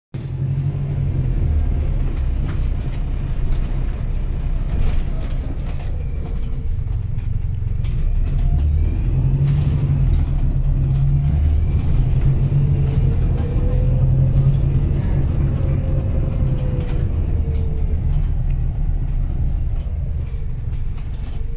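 Go Ahead Ireland bus heard from inside the passenger cabin while it drives: a steady low engine and drivetrain drone with road noise and frequent small clicks. A whine rises and then falls in pitch partway through.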